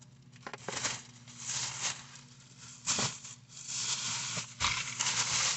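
Plastic shopping bags and wrappers rustling and crinkling as they are rummaged through, in uneven bursts that grow busier in the second half.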